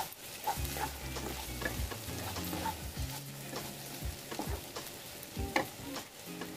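Wooden spatula stirring and scraping sliced taro root (arbi) frying in a non-stick kadai, with a light sizzle and irregular scrapes and taps against the pan.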